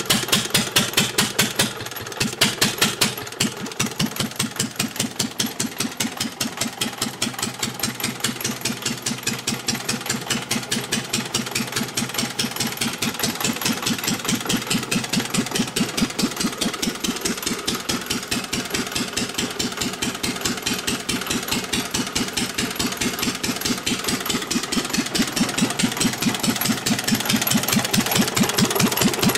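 1924 Bernard type D1 single-cylinder stationary petrol engine running steadily, its firing strokes making a fast, even beat.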